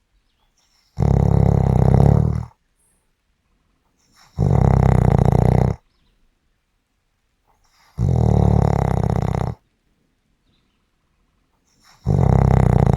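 Snoring: four loud snores about every four seconds, each lasting about a second and a half, with near silence between breaths.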